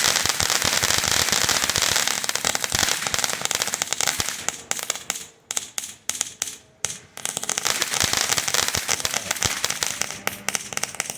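Captain Nuclear firework fountain burning: dense, rapid crackling over a hiss. It thins out with short gaps about halfway through, then crackles thickly again.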